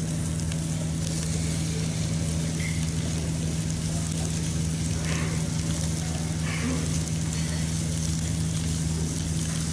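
Meat sizzling on a hot tabletop barbecue grill plate as a raw beef steak is laid down beside cooking pork and vegetable skewers: a steady frying hiss over a constant low hum.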